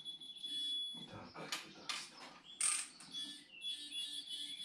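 Digital torque wrench beeping with a steady high tone while a bolt is tightened: one beep stops about a second in, a second starts near the end. Between the beeps come a few sharp ratchet clicks and metal knocks.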